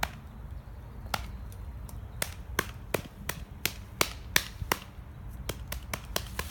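A quick run of sharp clicks and knocks, about three a second at their busiest, over a low steady rumble.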